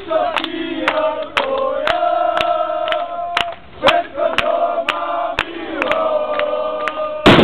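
A group of hockey supporters chanting and singing in unison, holding long notes, over a sharp beat about twice a second. A loud bang near the end.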